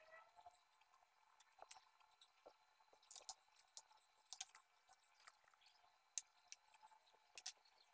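Near silence with faint, scattered ticks and soft rustles of hands folding and rolling thin spring roll wrappers on a ceramic plate.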